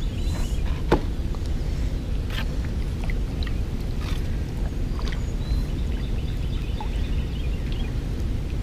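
Kayak being paddled with a double-bladed paddle: blade strokes through the water with scattered sharp knocks and drips, over a steady low rumble.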